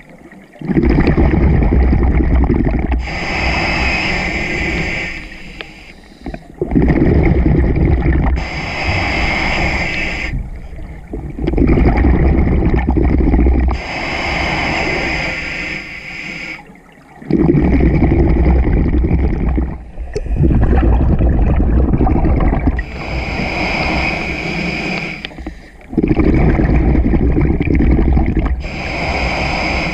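Scuba breathing through a regulator underwater: a hissing inhale, then a loud gush of exhaled bubbles lasting two to three seconds. The cycle repeats about every five to six seconds.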